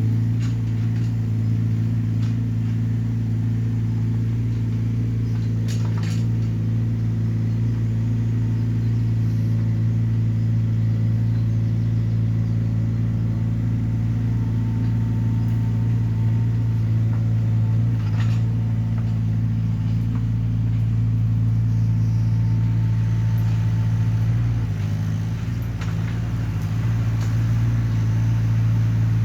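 Hyundai small excavator's engine running steadily, its note briefly dipping and shifting near the end, with a couple of short knocks along the way.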